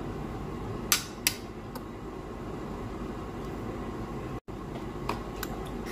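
Metal kitchen tongs clicking and tapping against a plate a few times, with two sharp clicks about a second in and a couple of lighter ones near the end, over a steady low hum.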